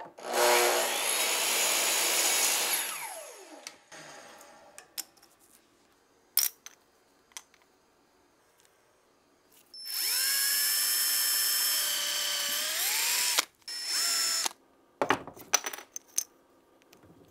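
Electric miter saw cutting through a small wooden block, its motor winding down with a falling whine about three seconds in. Later a power tool spins up with a rising whine, runs for about three seconds and winds down, with scattered light clicks and knocks of wood being handled in between.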